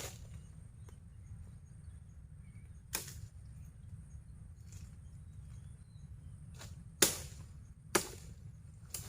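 A few isolated sharp knocks spaced seconds apart, the loudest two about a second apart near the end, over a steady low rumble.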